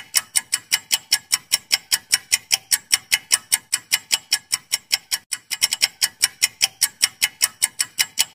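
Clock-ticking sound effect for a quiz countdown timer: rapid, even ticks, about four a second, with a brief stumble a little past the middle. The ticking cuts off suddenly near the end.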